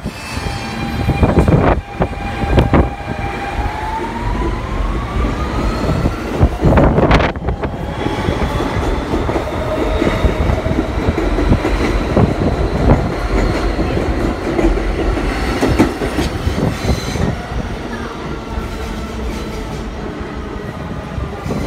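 R160B Siemens subway train pulling out, its electric propulsion whine holding one pitch and then rising steadily as the train accelerates, with a fainter higher whine climbing later. Underneath are the rumble and clatter of the steel wheels over the rail joints, with a few sharp knocks in the first seconds.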